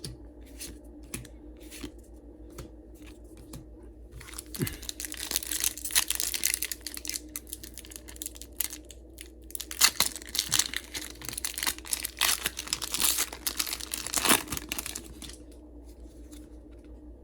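Foil booster-pack wrapper being torn open and crinkled, with light clicks and handling at first, then dense crackling from about four seconds in, with the sharpest tears near the middle and shortly before the end.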